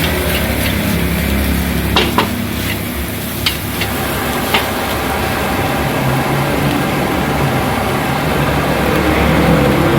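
Mie goreng noodles sizzling as they are stir-fried in a wok, with a few sharp clanks of the metal spatula against the pan. A vehicle engine grows louder near the end.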